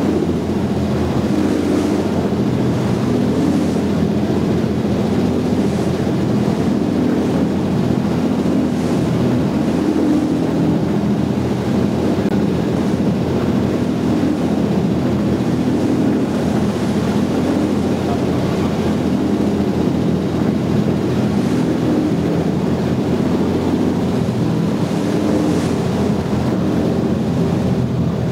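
A boat's engine running steadily under the rush of wind and choppy sea, with wind buffeting the microphone.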